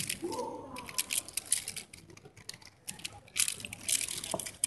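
Rapid clicking and clacking of an XMD Volt Square-1 puzzle turned at speed during a solve, in two quick runs with a short lull between them. A brief voice is heard near the start.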